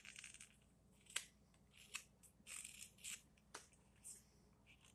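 Straight carving knife slicing thin facet cuts on the rim of a wooden spoon. It makes a series of faint, short shaving strokes with a few sharp ticks in between.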